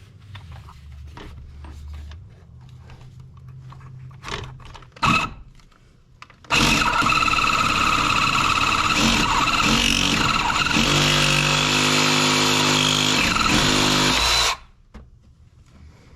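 A handheld power cutting tool runs for about eight seconds, cutting through the Jeep's steel power steering high-pressure line close to its rounded-off fitting nut; its whine drops lower in the second half as it bites into the line. A few knocks of handling come before it.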